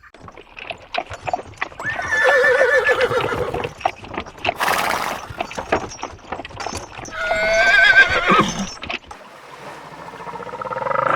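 A farm animal calling twice with a long, quavering voice, among scattered sharp clicks and knocks, with a short noisy blast between the calls and a third call starting near the end.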